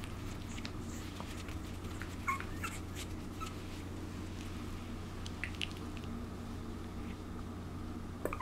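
Two-month-old puppy giving a few faint, short high squeaks, then a quick run of small yips near the end.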